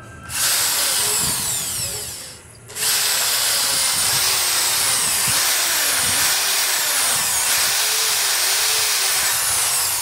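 Corded electric drill running at high speed, spinning a small hair-dryer motor armature held in its chuck while sandpaper cleans the commutator. It runs for about two seconds, slows almost to a stop, then starts again and runs on, its whine rising and falling in pitch.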